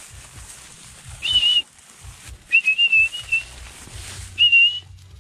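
A man whistles three short, warbling whistles at a steady high pitch, calling to his hunting mongoose. The middle whistle is the longest.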